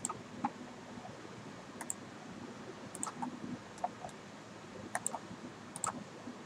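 Computer mouse clicking irregularly, in single clicks and quick pairs, as objects are picked on screen; faint, over a low steady hiss.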